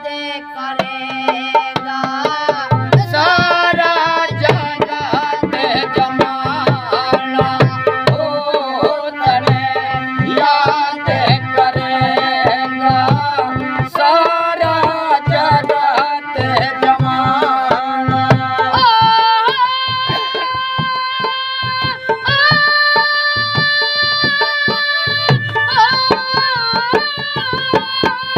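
Indian music: a hand drum keeps a steady beat under a melody with sliding ornaments, first over a steady drone and then moving to long held notes about two-thirds of the way through.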